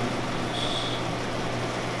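Meat and vegetables frying in a pan, a steady hiss over a low steady hum, with a short high-pitched tone about half a second in.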